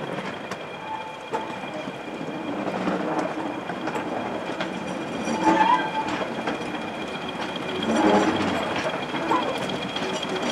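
A slow goods train rolling past, its wagon wheels clicking irregularly over the rail joints. A green BR Class 20 diesel locomotive runs behind, propelling the wagons.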